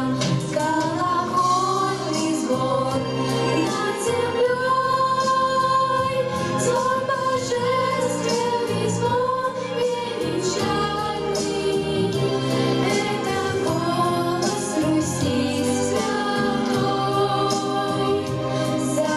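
Two female voices singing a song together over instrumental accompaniment, in long held notes.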